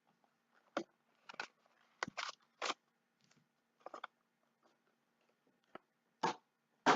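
Packaging of a sealed trading-card box being handled and torn open: short, irregular crinkles and rustles of wrapper and cardboard, about eight in all, the loudest near the end.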